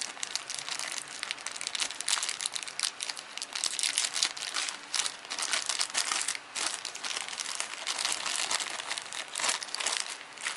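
Thin clear plastic bags crinkling and crackling irregularly as hands handle and open them to get at the capsule-toy parts inside.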